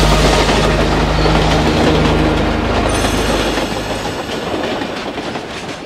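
Train sound effect: a train passing by, its wheels clattering on the rails as the sound fades away steadily.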